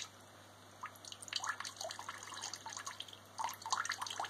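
A thin stream of water from the return hose trickles and splashes into a bucket of water, with irregular drips and plops, over the faint steady hum of a small submerged aquarium pump. The pump is pushing water around the torch's cooling loop, and water is flowing back.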